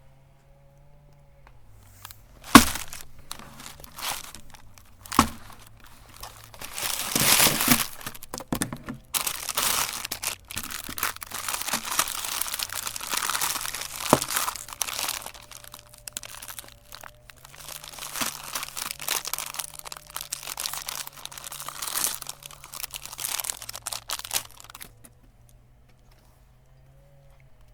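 Mini ice cream treats crinkling and crunching as a meat grinder crushes them. Two sharp cracks come first, then a dense crackle that runs on and stops near the end.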